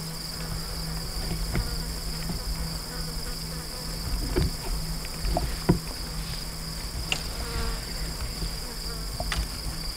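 Steady high-pitched chorus of insects trilling without a break, over a low steady hum, with two sharp knocks past the middle.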